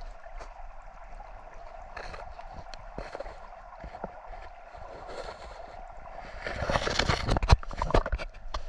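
Creek water running steadily, with scattered sharp clicks. About six and a half seconds in, a louder stretch of noise full of sharp clicks rises for a second or two, then eases.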